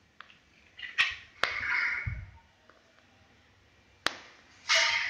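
Canvas collection bag being handled and shaken: cloth rustling with several sharp flapping snaps and a dull thump about two seconds in. No motor running.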